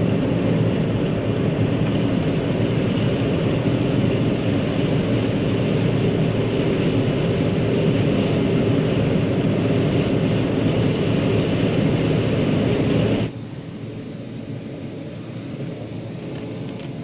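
John Deere 9500 combine harvester running steadily under load while threshing corn. About thirteen seconds in the loud running cuts off abruptly, leaving a quieter steady hum.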